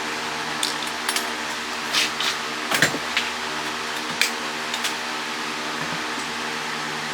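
An electric fan runs with a steady hum throughout. Over it, a scatter of light clicks and clinks sounds from about half a second to five seconds in, loudest near the middle: metal parts and tools being handled as the water pump motor is taken apart.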